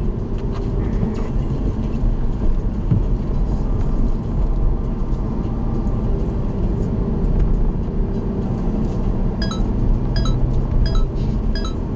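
Car cabin noise while driving: steady low engine and tyre rumble with road hiss. From about nine seconds in, a short pitched tick repeats about twice a second.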